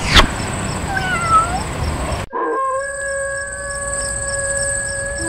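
Dog howling: a short wavering howl about a second in, then a long steady howl from about two seconds in, over a constant high insect trill like crickets. A sharp click comes just after the start.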